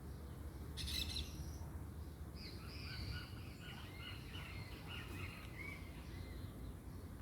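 Birds chirping: a short harsh note about a second in, then a run of quick, short chirps over a low steady rumble of background noise.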